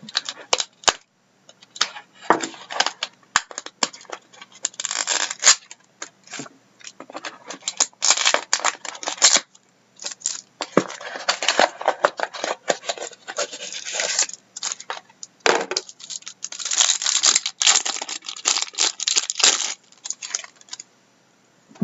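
Trading card pack being torn open by hand: the wrapper crinkling and tearing, with cards rustling and sliding, in irregular bursts with short pauses.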